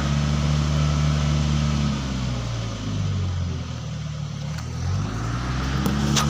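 Engine of a crane lifting teak logs, running steadily; its speed drops about two seconds in and picks back up near the end. A single sharp knock sounds just before the end.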